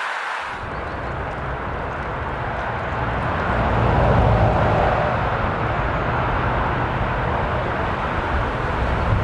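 Jet airliner's engines running as it passes over an airport, a steady noisy rush with a deep low rumble that swells about four seconds in.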